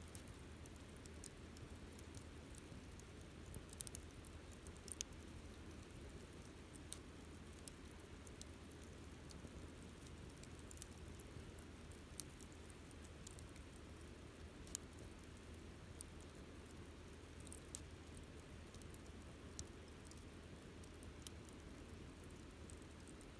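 Campfire crackling quietly: irregular sharp pops and snaps, roughly one every second or two, over a faint steady hiss.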